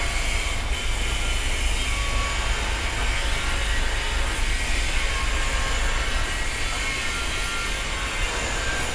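Construction site ambience: a steady low rumble of heavy machinery under a broad hiss, with faint high squeaks coming and going.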